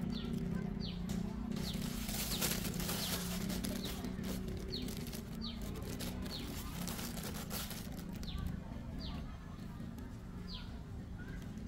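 Outdoor ambience: a short, high chirp that falls in pitch, repeated about once a second, over a steady low hum.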